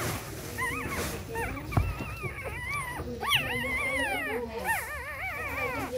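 Several newborn puppies whimpering and squeaking as they nurse: short, high, wavering cries that overlap and get busier in the second half. There is a single soft bump about two seconds in.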